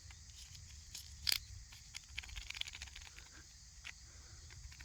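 Quiet outdoor ambience with a steady high insect drone. A single short, sharp high chirp comes about a second in, followed by a run of faint rapid ticks and rustles.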